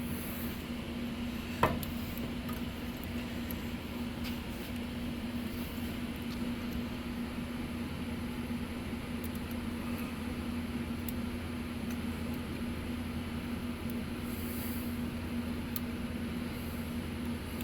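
Steady mechanical hum from a running machine, with one sharp click about a second and a half in and a few faint ticks from hand work on the carburetor linkage.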